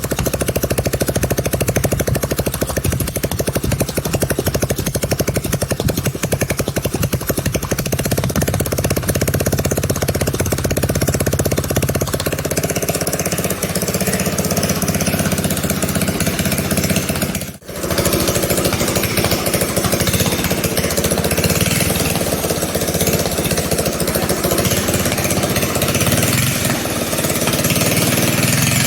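Small single-cylinder engine of a home-built pocket bike running under load as the bike is ridden, a fast steady chatter of firing strokes. It breaks off abruptly for a moment about two-thirds of the way through, then carries on with more hiss.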